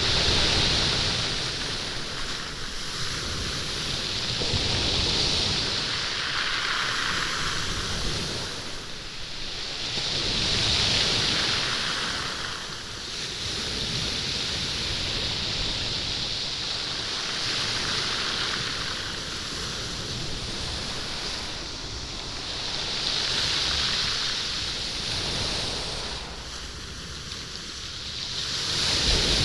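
Waves washing in and out over a stony beach, the stones rolling and clattering in the surf. Each wave swells and fades, about every six seconds.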